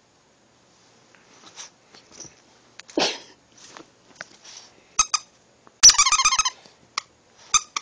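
Mini Schnauzer–Shih Tzu puppy chewing a squeaky plush spider toy: soft snuffling and mouthing noises with a short huff about three seconds in, then the toy squeaks: two quick squeaks at about five seconds, a longer wavering squeak a second later, and a couple more near the end.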